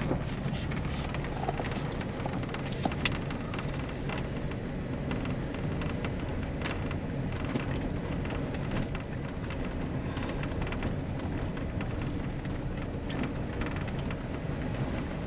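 Chevy's engine running and road noise heard inside the cab while driving over bumps, with scattered light knocks and rattles. The engine keeps running over the bumps during a test of whether a loose fuel-pump connector makes it cut out.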